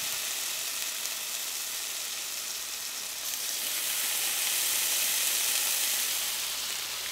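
Bacon strips sizzling in a hot nonstick frying pan: a steady frying hiss, swelling slightly partway through.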